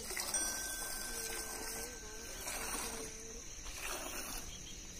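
Goat milk squirting by hand into a steel pail of frothy milk, a steady hiss, with a faint wavering tone in the background from about one to three seconds in.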